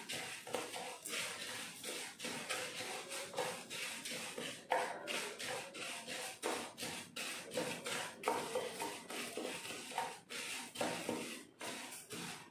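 Toor dal (split pigeon peas) being dry-roasted in a pan and stirred with a spatula: a run of short, irregular scrapes and rustles of the lentils shifting against the pan.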